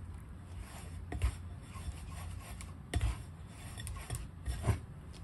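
Bread dough being mixed in a glass bowl: a thin scraper and then fingers rub and scrape flour and wet dough against the glass, with a few dull knocks against the bowl.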